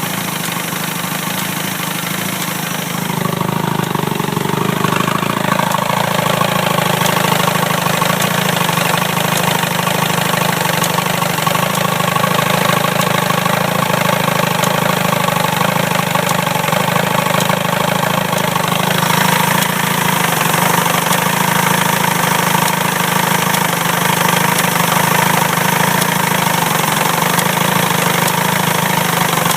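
Johnson outboard motor running steadily, growing louder about three seconds in, with a weird clicking noise whose source is unknown to the owner.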